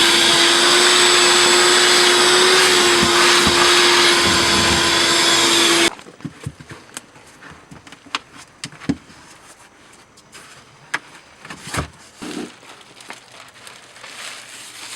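Vacuum cleaner running with a steady whine, switched off about six seconds in, followed by scattered light knocks and clicks.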